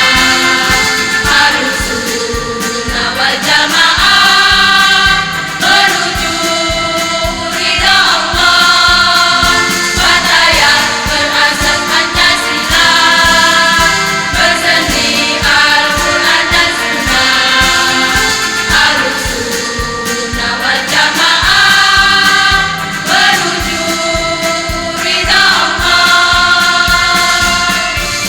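Women's choir singing over instrumental backing with a steady beat.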